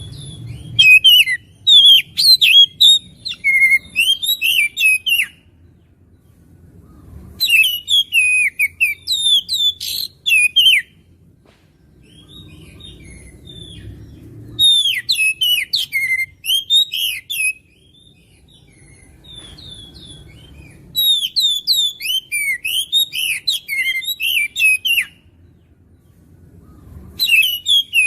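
Oriental magpie-robin (kacer) singing hard in about five loud bouts of a few seconds each. Each bout is a fast run of varied whistled notes that sweep up and down, with short pauses between the bouts and a faint low rumble underneath.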